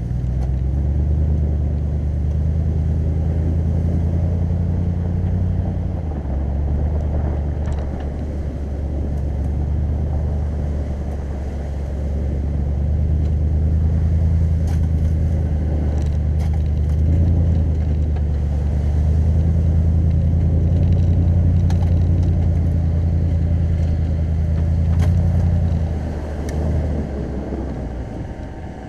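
Lexus GX 470's 4.7-litre V8 and tyres on packed snow, a low steady rumble while driving slowly along a trail, easing somewhat for a few seconds and dropping off near the end.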